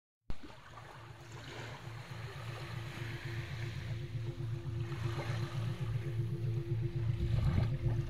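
Gentle sea waves lapping at the shore in soft swells every couple of seconds, over a low humming meditation tone that pulses about three and a half times a second. Both fade in from silence at the start.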